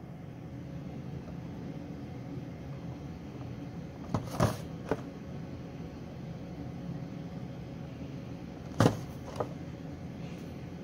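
Handling of a boxed Funko Pop figure, a cardboard box with a plastic window: a few sharp clicks and knocks about four seconds in and a louder pair near nine seconds as the box is turned over, over a steady low hum.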